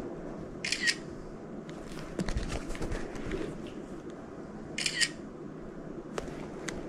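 Camera shutter sound, twice, about four seconds apart, as photos are taken of a sneaker. Light handling clicks come between the two shots.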